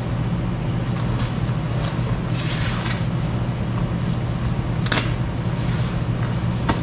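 Fabric of a heavy waterproof ice suit jacket rustling as its front is zipped and fastened, with a sharp click about five seconds in, over a steady low machine hum.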